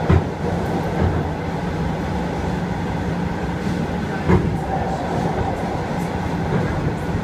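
Russian suburban electric train (elektrichka) running, heard from inside the carriage: a steady low rumble, with a sharp knock at the very start and another about four seconds in.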